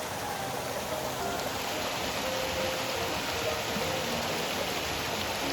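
Water of a small limestone creek rushing steadily over riffles and little falls, with soft background music faintly over it.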